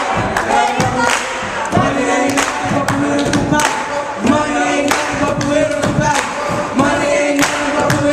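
A group of young voices singing together in held, pitched tones, with sharp percussive hits such as claps or stomps beating through it.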